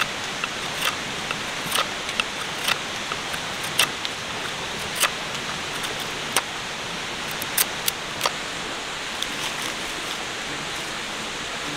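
A knife shaving a wooden stick into feather-stick curls: short sharp scraping strokes, roughly one a second, thinning out near the end, over a steady hiss.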